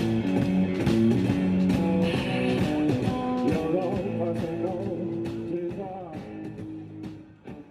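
Music with guitar and a wavering pitched line that may be a voice, fading out gradually toward the end.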